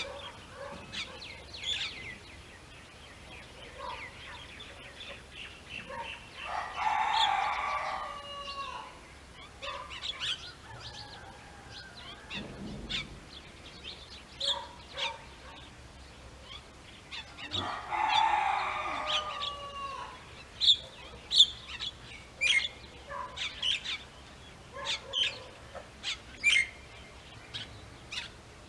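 A rooster crowing twice, about ten seconds apart, each crow about two seconds long. Between the crows there are many short, sharp bird chirps, which are loudest and most frequent in the second half.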